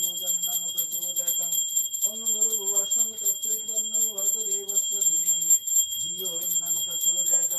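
A puja hand bell (ghanti) rung rapidly and without a break, its high ringing tones steady throughout. Beneath it a voice chants on long held notes that step up and down, pausing about every second or two.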